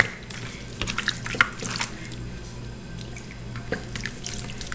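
Liquid marinade poured and dripping onto raw pork in a metal baking pan, with wet squishing and scattered small clicks as a hand rubs it into the meat.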